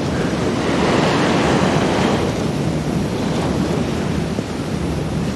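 Steady rush of sea waves washing on a shore, swelling slightly over the first couple of seconds and easing a little later.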